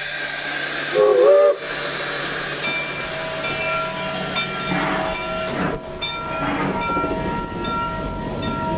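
Steady steam hiss in the cab of a Baldwin 2-8-2 steam locomotive, with a brief loud pitched sound about a second in and thin, steady high tones that come and go from about three seconds in.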